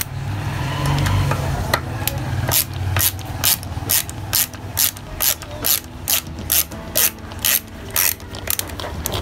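Ingco 13-in-1 ratchet screwdriver being turned back and forth, its ratchet pawl clicking in a regular rhythm of about two clicks a second. The clicking starts about two and a half seconds in.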